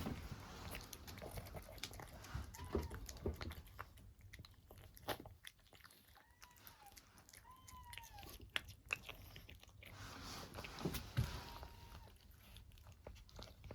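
A cat chewing, with scattered crunching clicks, and several short, faint mews spread through.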